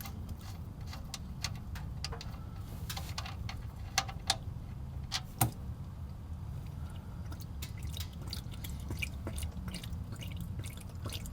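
Engine oil pouring from the 4Runner's 3.4L V6 oil pan drain into a drain pan, a steady low pour with scattered drips and clicks. Three sharper clicks come near the middle.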